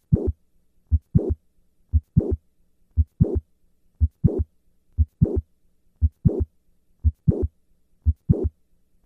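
Heart sounds of mitral valve prolapse with the patient squatting, about one beat a second: each beat is a first heart sound, then late in systole a click with a short harsh murmur, then the second heart sound. Squatting moves the click-murmur later in systole.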